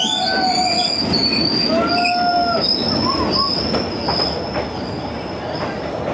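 Long train rolling slowly past, its wheels squealing on the rails in high, steady tones over the rumble of the carriages.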